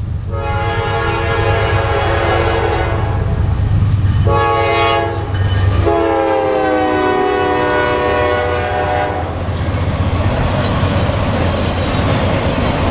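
Air horn of a Norfolk Southern GE Dash 9-44CW diesel locomotive leading a freight train: a long blast, a short one, then a long one whose pitch drops as the locomotive passes, over the low rumble of the diesel engines. After that come the intermodal cars rolling by, with the clickety-clack of wheels on the rails.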